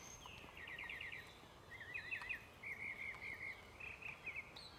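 Birds singing faintly, in quick runs of short high chirps and sweeping notes.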